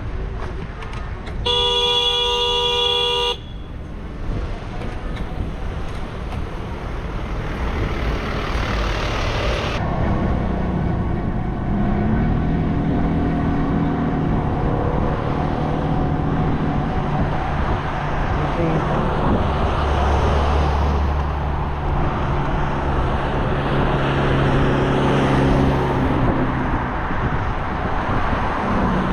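A vehicle horn sounds one steady honk lasting just under two seconds near the start. It is followed by road traffic noise and wind on the microphone, with a motor vehicle engine humming steadily through the second half.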